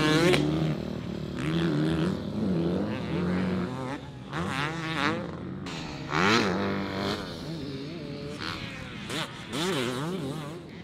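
Husqvarna TC 250 two-stroke motocross engine being ridden hard. It revs up and backs off again and again, its pitch climbing and falling with each throttle swell.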